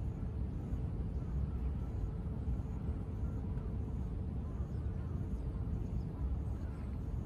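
Steady low rumble of distant city traffic, with faint high chirps repeating about twice a second.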